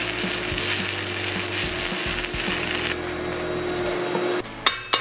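Stick-welding arc from a 3/32" E7018 low-hydrogen rod at about 80 A DCEP, crackling and sizzling steadily as the fillet bead is run, then breaking off about four and a half seconds in. A few sharp knocks follow near the end as the slag starts to be chipped.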